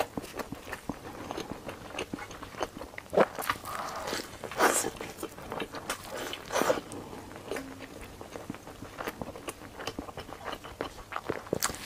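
Biting into and chewing a crispy fried beef meat pie: crunching bites and wet chewing, with louder crunches about three, four and a half and six and a half seconds in.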